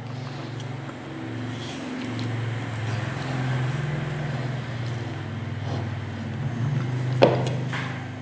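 A continuous low droning hum that shifts slightly in pitch now and then, with a single sharp click about seven seconds in.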